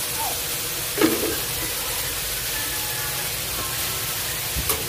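Shrimp sizzling in a pan, a steady hiss, with two clinks of a utensil against the pan, about a second in and near the end.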